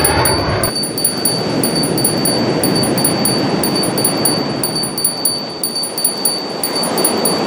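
Jet aircraft noise cuts off abruptly under a second in. Wind chimes then tinkle irregularly over a steady rushing noise and a thin, high, steady tone.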